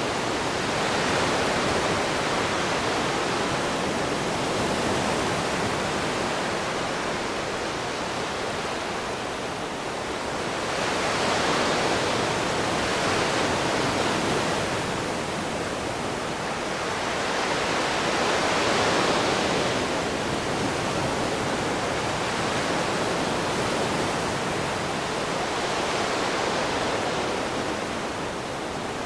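Ocean waves breaking and washing on a shore, a steady rushing hiss that swells and eases every few seconds.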